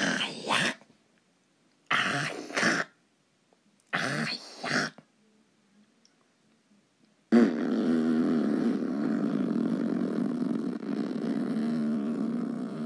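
Emergency Alert System interruption: three screeching digital data bursts, each under a second long and about two seconds apart, then, after a few seconds' pause, a steady, harsh alert tone starts about seven seconds in and keeps going.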